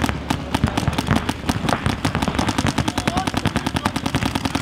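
Several paintball markers firing in rapid, overlapping strings of shots, many per second, growing denser about two seconds in.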